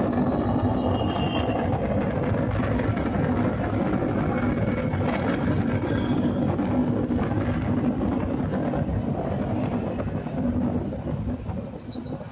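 Honda Unicorn motorcycle's single-cylinder engine running steadily, the noise its owner presents as a fault; it gets quieter for a moment near the end.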